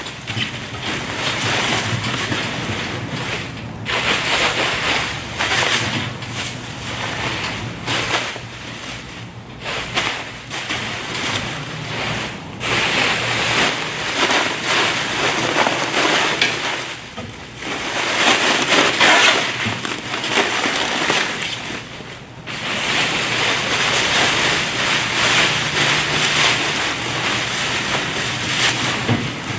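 Plastic stretch wrap rustling and crinkling as it is handled and stuffed into a manual plastic baler's chamber, in irregular surges with brief pauses.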